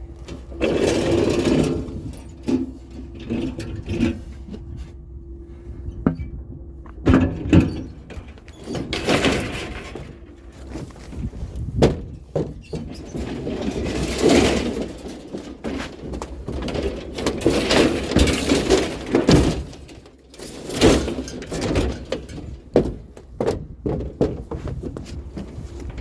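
Scrap items being handled and moved: repeated knocks, thunks and scraping noises.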